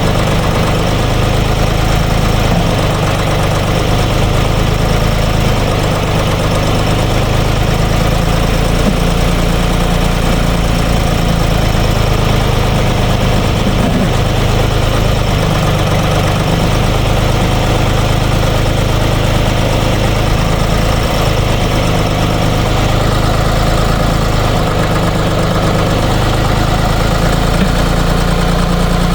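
Ditch Witch trencher-backhoe's air-cooled three-cylinder Deutz diesel running steadily at a fairly high idle, with slight shifts in its low hum now and then.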